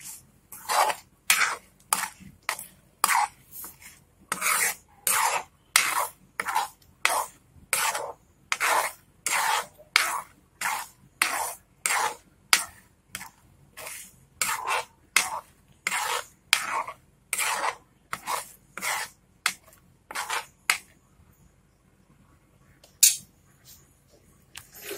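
Metal ladle scraping around a non-stick kadhai while stirring thick tamarind and jaggery chutney, about two strokes a second. The stirring stops about four-fifths of the way through, with one more scrape near the end.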